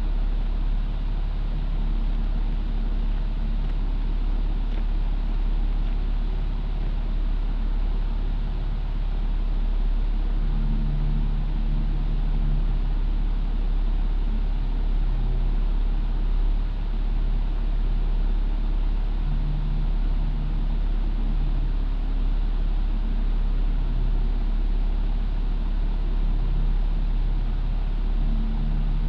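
2000 Toyota 4Runner idling steadily through a Flowmaster Super 40 series exhaust, an even low drone.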